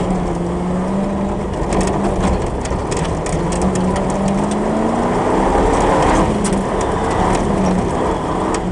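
Competition off-road 4x4's engine running under load, heard inside the cab, its pitch rising as it revs harder about halfway through, then easing off. Sharp knocks and rattles from the body and cage are heard over rough ground.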